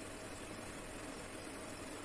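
Steady background hiss with a faint, even hum underneath; room tone with no distinct events.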